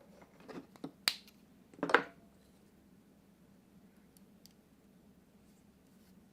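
Handling of small parts: a few sharp clicks and short scrapes in the first two seconds, the loudest about two seconds in, over a faint steady hum.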